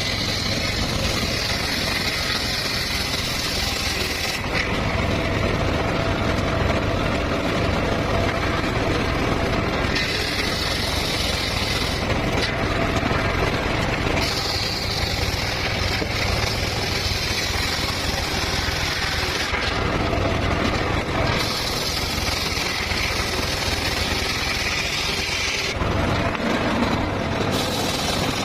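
Circular saw running steadily and cutting teak and mahogany. About four cuts of a few seconds each bring in a higher whine over the machine's steady running.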